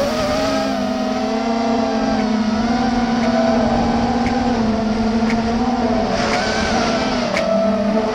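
FPV quadcopter's brushless motors and propellers whining steadily, the pitch rising and falling gently as the throttle changes.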